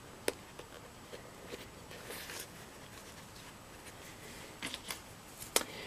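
Small plastic sewing clips clicking as they are handled and snapped onto leather, with soft rustling of the leather. There are a few sharp clicks: one shortly after the start, a quick cluster near the end, and the loudest just before the end.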